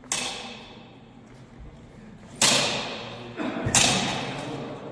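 Practice broadswords clashing during a sparring exchange: three sharp blade strikes, one right at the start and two louder ones about two and a half and three and a half seconds in, each ringing briefly as it fades.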